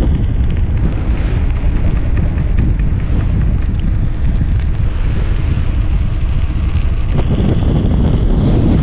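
Heavy wind buffeting the microphone of a bicycle-mounted camera as the bike rides along an asphalt road, a steady low rumbling rush.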